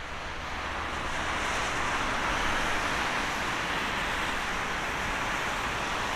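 Airbus A350-900's Rolls-Royce Trent XWB turbofans heard from a distance on final approach: a steady rushing jet noise that grows a little louder over the first couple of seconds, then holds.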